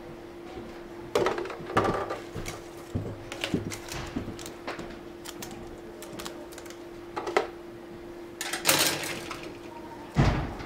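Plastic model-kit sprues being handled, with scattered clicks, taps and rustles as the parts knock against each other and the box, and one heavier thud near the end. A faint steady hum runs underneath.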